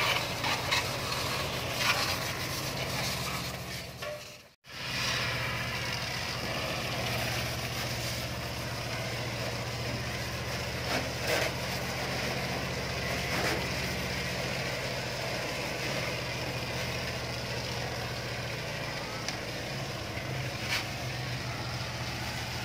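Pressure washer running with a steady hum, its water jet hissing against a motorcycle; the sound cuts out for a moment about four and a half seconds in.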